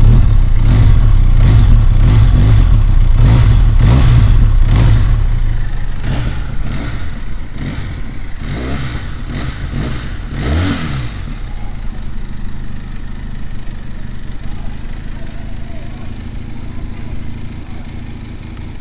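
Benelli 502C's 500 cc parallel-twin engine revved again and again in quick throttle blips, then dropping back to a steady idle about eleven seconds in. The owner finds it not noisy and likens its sound to an inline-four or a sports car.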